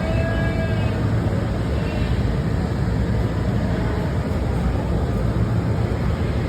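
Steady low rumble of background noise in a livestock barn, with a faint short tone near the start.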